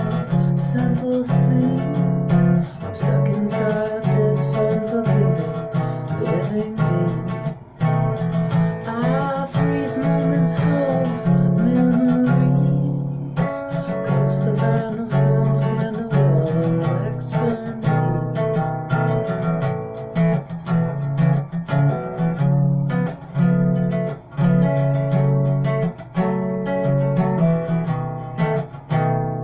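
Guitar music: steady strummed chords.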